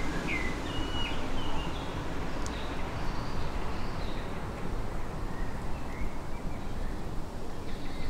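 Outdoor ambience: a steady low rush of noise with a few faint, short bird chirps, in the first second or two and again a few seconds in.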